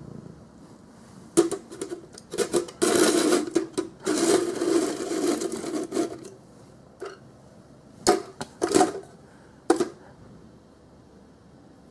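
Hollow plastic maneki-neko figurine knocked and scraped on a tiled floor: a few sharp taps, then about three seconds of scraping and rattling, then a few more knocks near the end.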